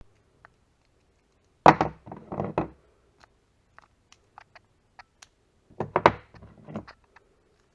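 Two bursts of clattering knocks and clicks, each about a second long, with scattered light ticks between them: hard plastic parts of an airsoft pistol and its magazine being handled.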